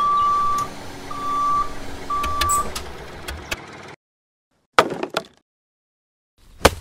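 Tractor reversing alarm beeping three times, evenly spaced, over engine noise that cuts off abruptly about four seconds in. Then a few short knocks.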